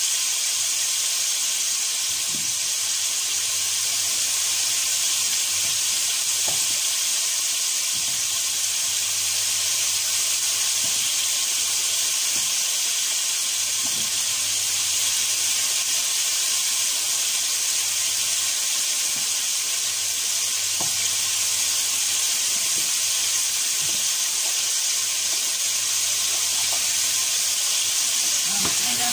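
Chopped onion, carrot and pepper sizzling steadily in oil in a frying pan, with faint clicks every few seconds as a knife cracks chunks off peeled potatoes.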